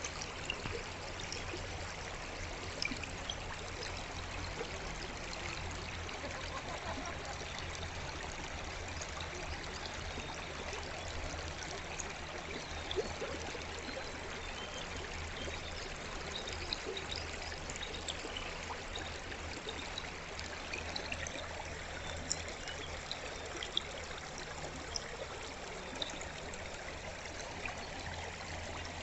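Gentle forest stream flowing with a steady rush and trickle of water, with small splashes here and there.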